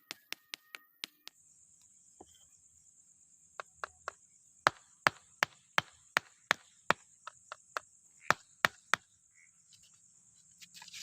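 Repeated sharp knocks of a mallet tapping paving blocks into place, in quick runs of about three a second, over a steady high-pitched chirring of night insects.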